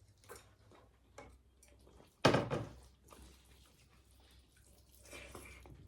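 Eating sounds at a meal: faint mouth and hand noises, with one loud sudden eating noise about two seconds in.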